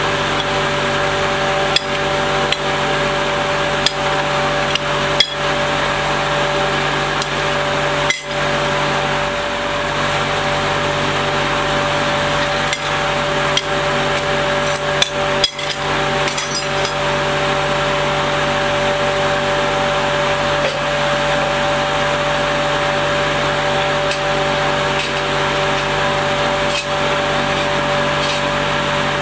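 Plastic extruder running with a steady motor hum while a steel scraper works at the hot die screen, giving scattered sharp metallic knocks and clinks.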